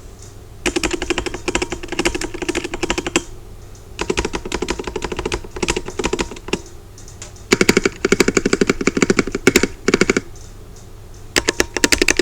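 Rapid repeated key presses on the stabilized keys of a Redragon K649 Elf Pro mechanical keyboard with Ice Silver switches, clicking and clacking in four quick bursts with short pauses between. The stabilizers sound solid, with no rattle.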